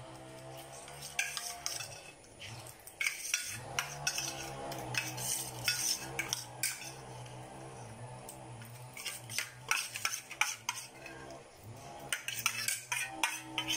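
Metal spoons scraping and clinking against steel plates as two children eat fast, in quick irregular taps and scrapes.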